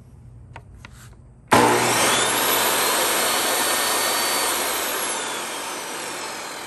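A DeWalt contractor table saw's motor starts abruptly about a second and a half in, after a few light switch clicks, and runs with a whine. It then gradually winds down after the red paddle of the newly fitted on/off switch is pressed off.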